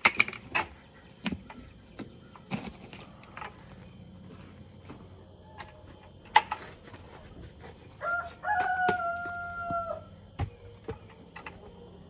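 A rooster crows once past the middle, one long call of about two seconds, among scattered sharp knocks and clatter from plastic buckets and a feeder pan being handled.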